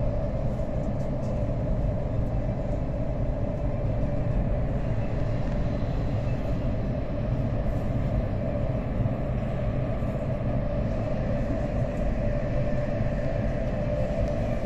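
Steady low rumble and rolling noise inside the passenger car of a Whoosh high-speed electric train (KCIC400AF) running along the line, with an even hum.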